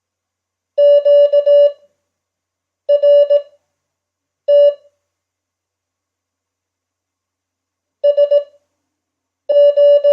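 Morse code (CW) practice tone: a steady beep keyed on and off in quick dots and dashes, five characters with long pauses between them. This is Farnsworth-spaced code at 5 words per minute.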